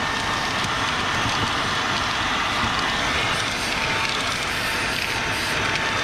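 Ecolumix 19 kPa cordless stick vacuum running steadily with its brush nozzle, vacuuming a car's interior: an even airflow rush with a faint thin whine.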